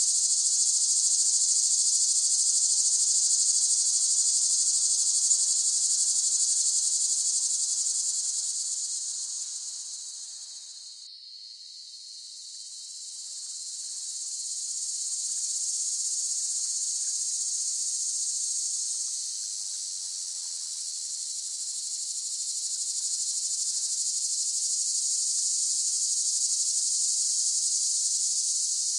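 A chorus of cicadas buzzing in a steady, shrill, high-pitched drone. It fades down to its quietest about eleven seconds in, then swells back up.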